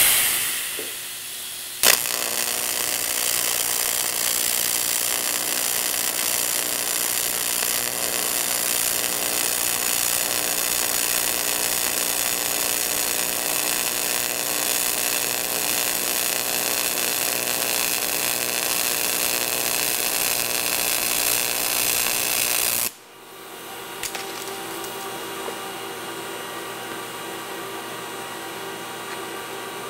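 AC TIG welding arc from a Miller Syncrowave 250DX on 1/16-inch aluminum: after a short burst right at the start, the arc strikes with a sharp crack about two seconds in and runs as a loud, steady buzz for about twenty seconds. It cuts off suddenly, leaving the welder's quieter steady hum.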